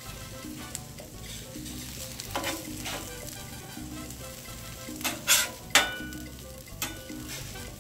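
French toast and chicken sausage patties sizzling on a flat-top gas griddle. A metal spatula scrapes across the steel griddle plate several times, the loudest strokes a little past the middle, as it slides under the sausage patties.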